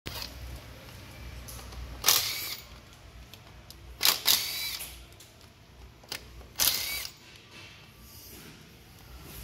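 Sharp metallic clanks from a CV half-shaft and its inner joint being worked into an independent rear suspension differential, a few separate knocks about two, four and six and a half seconds in, each ringing briefly.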